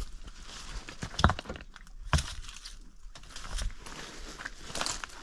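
Scattered footsteps and knocks on stony, gravelly ground, the two sharpest about one and two seconds in.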